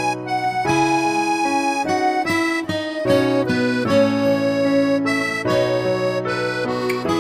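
Background instrumental music with a reedy, accordion-like melody over sustained chords.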